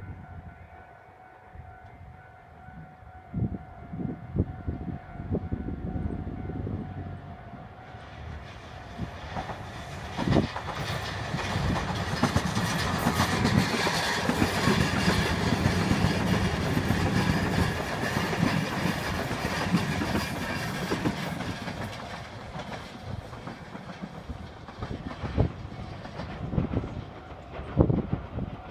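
JR Kyushu 305 series electric multiple unit passing: the rumble and clatter of its wheels on the rails builds from about a third of the way in, is loudest in the middle, then fades as the train draws away. A few low thumps stand out, the loudest near the end.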